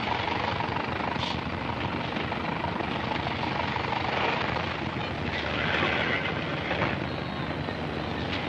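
1920s city street ambience: a steady rumble of motor traffic. A brighter, higher sound rises over it for a second or two about five seconds in.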